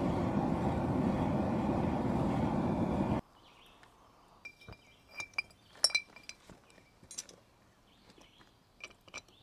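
Steady, loud rush of the burner heating a small brick forge, cutting off suddenly about three seconds in. Then a red-hot homemade steel tap, held in tongs, is quenched in a glass jar of oil to harden it, clinking against the glass several times.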